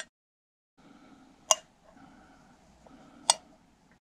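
Two sharp, short clicks about two seconds apart, over a faint background hiss.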